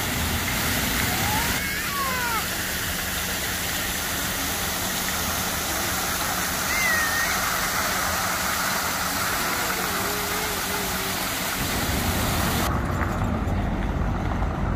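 City street noise with vehicle traffic running steadily, with a few short high squeals or calls over it. The noise changes abruptly a couple of times.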